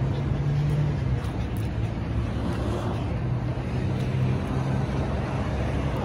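A steady low engine hum over street background noise.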